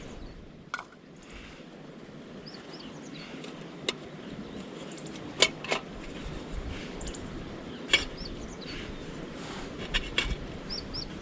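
A bird's short double chirp, repeated every few seconds, over a steady outdoor background, with several sharp clicks scattered through.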